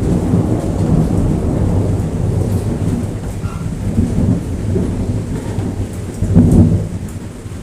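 Rain falling steadily with a low rolling rumble of thunder, which swells to its loudest about six seconds in.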